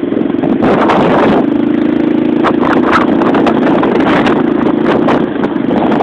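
Light aircraft's piston engine and propeller running steadily, with wind gusting on the microphone, strongest about a second in.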